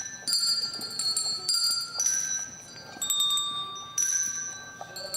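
Colour-coded hand bells rung one at a time by children, playing a slow tune of single notes at different pitches, about seven strikes, each ringing on and fading before the next.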